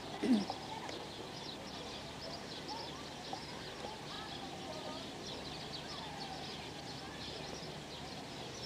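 Outdoor village ambience: many small birds chirping steadily, with faint distant voices and calls. A short, louder falling sound comes about a third of a second in.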